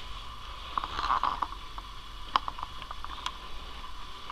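Quiet room with faint rustling about a second in and a few scattered small clicks, over a steady low hiss.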